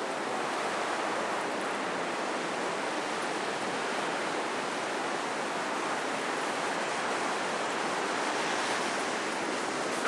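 Steady rushing of sea surf on a sandy beach.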